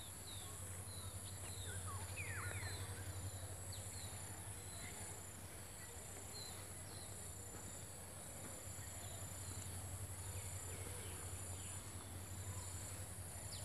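Faint background noise: a steady low hum and hiss, with scattered faint, short, high chirps.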